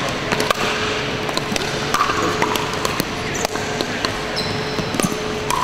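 Pickleball paddles striking a hard plastic ball, sharp pops from the rally and neighbouring courts, echoing in a large sports hall over a steady faint hum. A couple of short high squeaks come about three and a half and four and a half seconds in.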